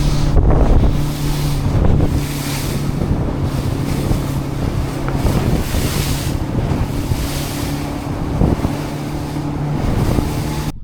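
Boat motor running at a steady hum, with wind buffeting the microphone in gusts.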